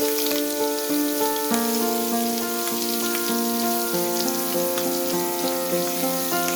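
Background music with held notes over food sizzling and crackling in a hot pan.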